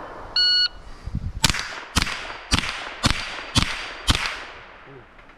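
Electronic shot-timer start beep, then six quick shots from a .22 rimfire Ruger 10/22 rifle, about half a second apart, each with a short fading tail. The timer fails to pick up any of the shots.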